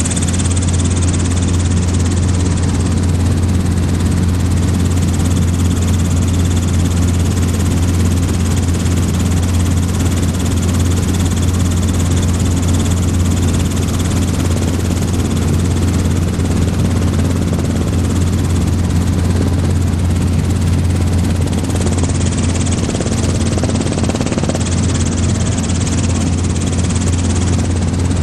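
Robinson R22 helicopter in cruise flight, heard from inside the cabin: the four-cylinder piston engine and rotor make a loud, steady drone with no change in pitch.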